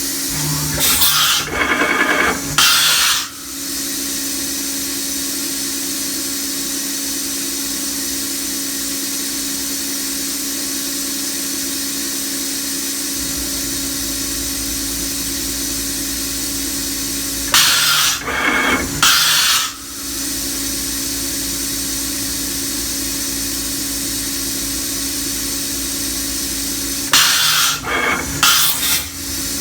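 Fanuc Robodrill α-T21iFLa vertical machining centre running with a steady mechanical hum. Three times, near the start, at about 18 seconds and near the end, it gives a loud burst of noise lasting two to three seconds, and a low rumble joins the hum about 13 seconds in.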